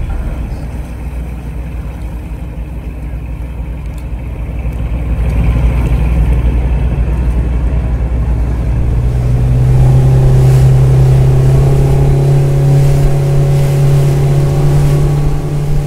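Boat engines running: a low rumble, joined about nine seconds in by a louder, steady engine drone, that of a small open boat's outboard motor under way.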